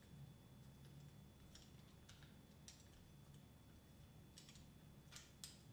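Faint, irregular clicks and taps of small plastic GoPro suction cup mount parts being handled, the two loudest near the end.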